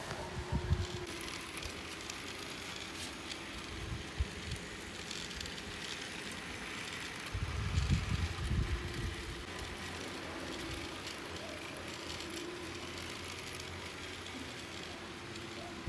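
Small battery-powered toy train running round a plastic track: a steady faint motor hum with light clicking from the wheels. Low rumbles of wind on the microphone come in about halfway through.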